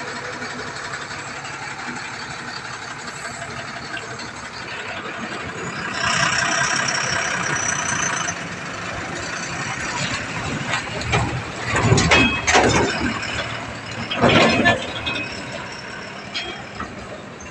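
Tata 2518 tipper truck's diesel engine running as the truck moves off. There is a louder stretch with a high whine about six seconds in, and several loud bursts of noise later as it pulls away.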